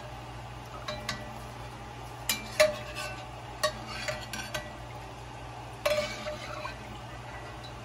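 A metal slotted spoon clinks and scrapes against an enameled pot and a metal sheet pan as fried shoestring potatoes are scooped out of the oil. There are about a dozen sharp clinks with brief ringing, the loudest about two and a half seconds in and again around six seconds, over a steady low hum.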